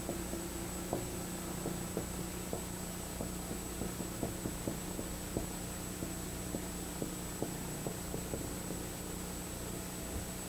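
Steady electrical hum with a faint high whine, under soft irregular ticks and taps of a marker writing on a whiteboard.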